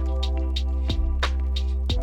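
Background electronic music with a steady beat and a heavy bass line.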